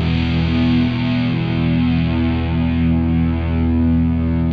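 Black metal music: a heavily distorted electric guitar holding long, slowly changing notes, muffled with the highs cut off and with no drums.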